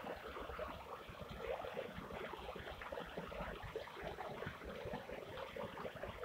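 Water pouring over a small mill weir into the river below, a steady rushing and splashing.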